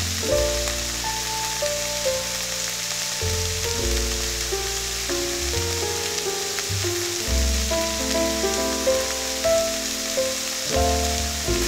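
Chopped onions sizzling steadily in hot olive oil with cumin in a frying pan, with background music playing over it.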